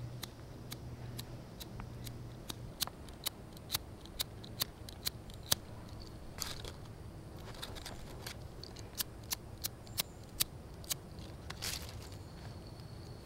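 Disposable gas lighter being clicked over and over without lighting, in two runs of sharp clicks about two or three a second. The lighter is failing to give a flame.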